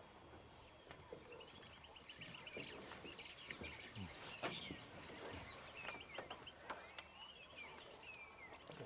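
Birds calling in several quick stuttering trills of high chirps, with scattered faint clicks and taps.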